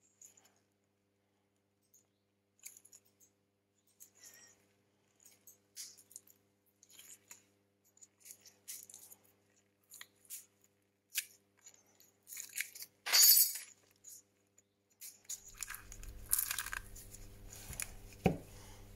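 A plastic pry tool clicking and scraping under a smartphone battery as it is worked off its adhesive, with a louder noisy burst about two-thirds of the way through as the battery comes free. A steady low hum comes in near the end.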